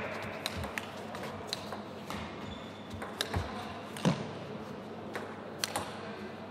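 Table tennis rally: the celluloid ball clicking sharply off the players' rubber-covered bats and the table, a quick irregular series of ticks, the loudest about four seconds in, with echo from a large hall.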